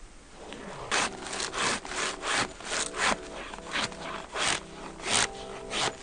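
Pine stick drawn again and again against a fixed knife blade, shaving off curls for a feather stick: a run of dry rasping scrapes, about two a second, starting about a second in.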